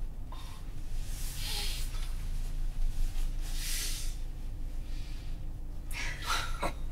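Emotional breathing: two long, heavy breaths, then a short shaky vocal catch near the end, over a steady low hum.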